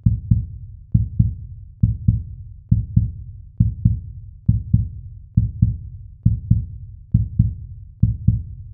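Heartbeat sound effect: a low double thump, lub-dub, repeating steadily a little faster than once a second.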